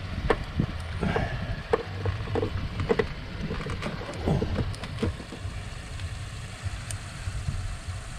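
Scattered clicks and light metal taps as a car battery's terminal clamp is fitted onto the post and tightened with a hand tool, over a low steady rumble.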